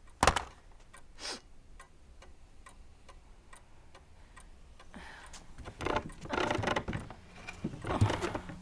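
A single loud clunk just after the start, as a telephone handset is put down, then a pendulum wall clock ticking steadily. Rustling movement noises grow louder in the last few seconds.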